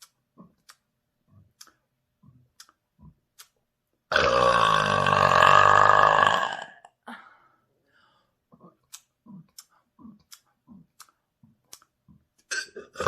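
A long, deep, loud burp about four seconds in, lasting some two and a half seconds, deliberately brought up by gulping air. Faint short gulps come about twice a second before and after it, and another loud burp starts near the end.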